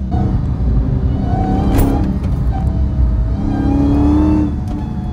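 Supercharged V8 of a Dodge Hellcat running hard: a deep, loud rumble with the engine note rising and falling as it accelerates.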